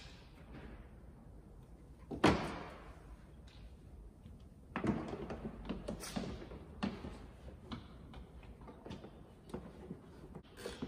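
Hands and a tool working at the plastic front wheel-arch liner of a Mercedes A-Class (W177) while a screw behind it is taken out. A sharp knock sounds about two seconds in, then irregular scraping and clicking of the plastic from about five seconds on.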